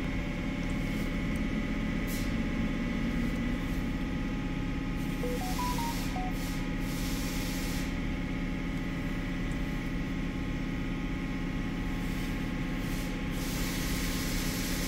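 An engine idling steadily, a continuous even drone, with a few faint short beeps of different pitches about halfway through.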